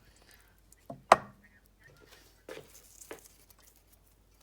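A spoon knocking against a cooking pot as cooked chicken biryani mixture is spooned onto the rice: a handful of sharp knocks, the loudest about a second in.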